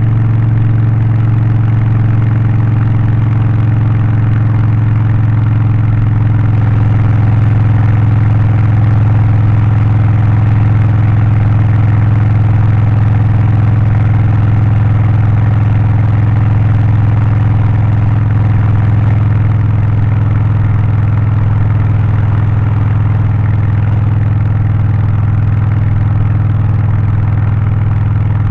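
Harley-Davidson Low Rider ST's Milwaukee-Eight 117 V-twin running steadily through its Stage 1 aftermarket exhaust, with a deep, even beat and no clear revving.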